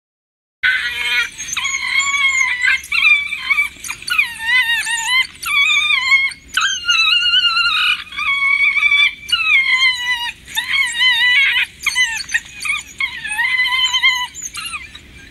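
African wild dogs (painted wolves) giving a rapid run of high-pitched calls that waver up and down in pitch, starting about half a second in.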